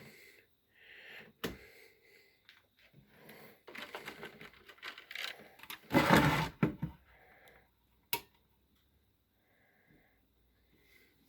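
Scattered clicks and rustling handling noise at a model railway control panel as it is switched on, with a loud, short rush of noise about six seconds in and a single sharp click about two seconds later.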